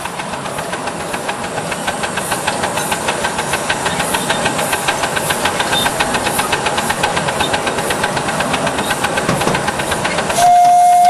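Live steam miniature locomotive running, its exhaust beating in a quick, even rhythm over a steady hiss of steam and growing louder. Near the end comes a short, steady blast of its steam whistle.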